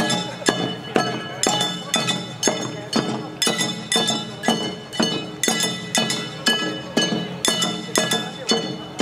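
Small hand-held flat gongs (kane) of jangara nenbutsu odori struck in a steady beat, about two strikes a second, each leaving a bright metallic ring.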